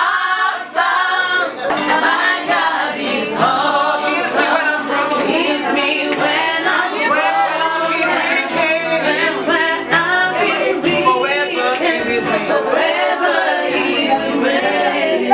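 A group of women singing together, with voices overlapping in a continuous song.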